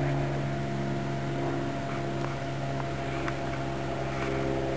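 A steady, unchanging mechanical hum of a motor or engine running, with a few faint ticks.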